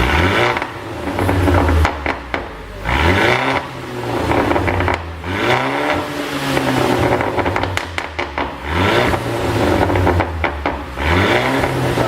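Mercedes-Benz CLA220 being revved in repeated blips, with the engine note rising and falling about five times. Pops and crackles from the exhaust come as the revs drop, the overrun crackle of a pop-and-bang ECU tune.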